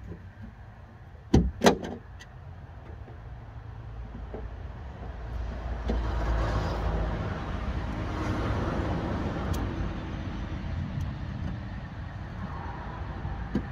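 Two sharp knocks about a second and a half in as a door speaker is worked into its mounting in a van's bare metal door panel, followed by a low rumble that swells over several seconds and slowly fades.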